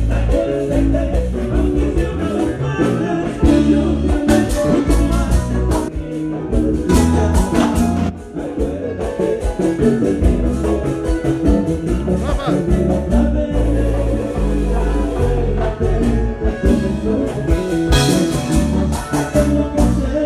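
Live vallenato band playing at sound check, with a lead voice singing over the band through a loud PA, with heavy bass.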